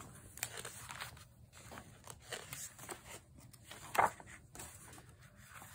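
Faint paper rustling and soft clicks as the pages of an art sketchbook are turned and handled, with one sharper page snap about four seconds in.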